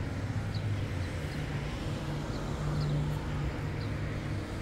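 Street ambience: a steady low hum of traffic or an idling engine, with faint short high chirps now and then.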